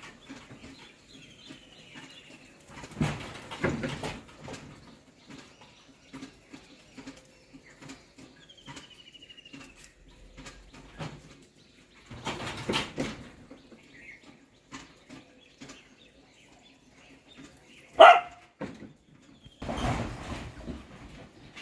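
A dog barks once, sharply, about three-quarters of the way through, the loudest sound here. Earlier there are two short descending bird chirps and a few brief bursts of rustling noise over a low steady hum.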